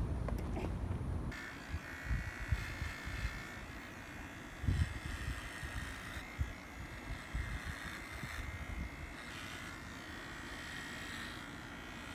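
Electric pet clippers buzzing steadily as they shave a cat's fur, starting about a second in, with a few soft low knocks from handling.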